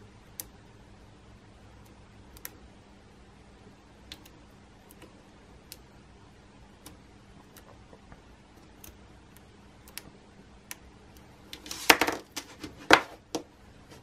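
Metal multimeter probe tips clicking lightly against the screw terminals of a plastic connector block, a scattered tick every second or so. Near the end comes a louder clatter of several knocks as the probe and the connector block are set down on a hard surface.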